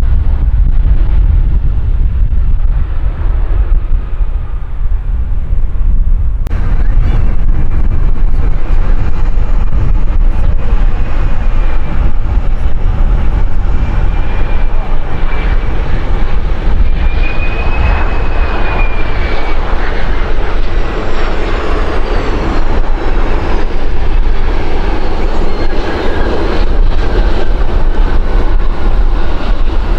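Strong wind buffeting the microphone throughout. After a cut about six seconds in, a landing Fokker 100's Rolls-Royce Tay turbofans approach and pass with a rising engine hum and whine whose pitch bends and falls as the jet goes by.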